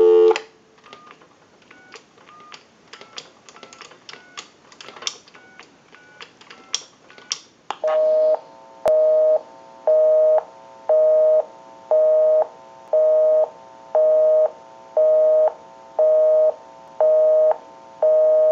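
Payphone handset line tones: the dial tone cuts off, a quick string of touch-tone (DTMF) digits is dialed, then a busy signal beeps steadily about once a second, showing the called line is busy.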